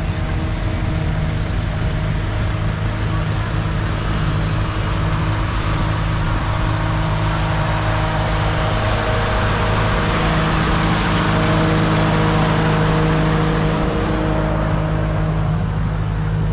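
A motor vehicle's engine running steadily, with a broad noise that swells about two-thirds of the way through, as if passing close, then eases off.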